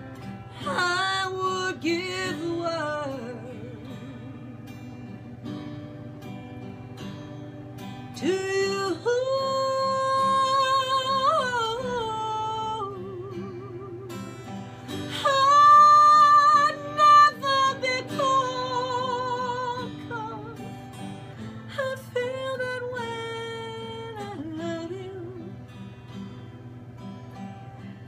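A woman singing a slow ballad with vibrato while playing acoustic guitar. Long sung phrases come in about a second in, around eight seconds, around fifteen seconds (the loudest) and around twenty-two seconds, with the guitar playing alone in between.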